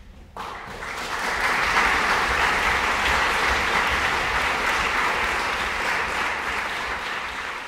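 Audience applauding: clapping starts suddenly about half a second in, swells over the next second to steady, full applause, and eases slightly near the end.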